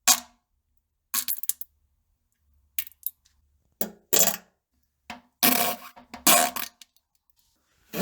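A series of about seven short fart sounds, each under a second and mostly buzzy, with silent gaps between them.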